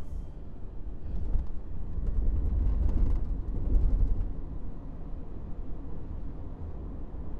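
Road and drivetrain rumble inside the cabin of a 2014 Subaru Forester on the move, swelling louder for a few seconds in the middle, then easing. There is no bearing drone: the rear-right wheel bearing has just been replaced.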